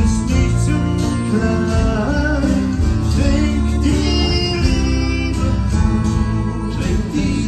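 Live band playing: a violin carries a melody with sliding, bending notes over strummed acoustic guitars and an electric bass line.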